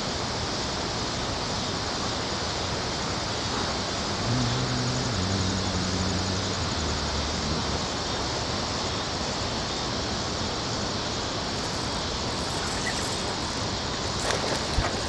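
Steady rush of churning water below a dam spillway, with a faint low hum that steps down in pitch between about four and eight seconds in.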